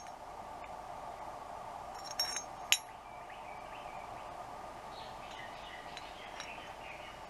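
Small metal foot peg parts clinking against each other a few times a little over two seconds in, the last clink ringing briefly, over a steady background hum.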